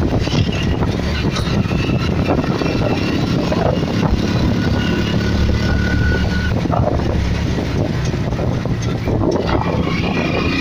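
Steady rumble and rushing wind of a moving vehicle, heard from on board as it travels along.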